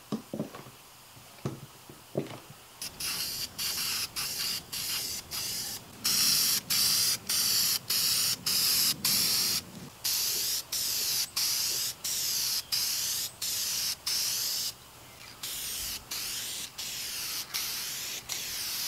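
A few sharp clicks from one-handed bar clamps being squeezed shut. Then an aerosol can of spray lacquer hisses in a long run of short bursts with brief breaks between them.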